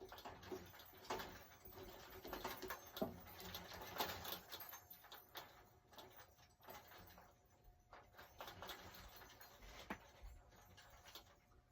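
Faint, irregular clicking and scraping of metal at a key cutting machine as the key blank is set to have its second side cut.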